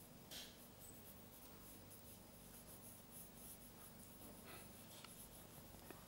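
Faint scratching of a pencil on sketch-pad paper in many short strokes, the strongest about half a second in, over a low steady room hum.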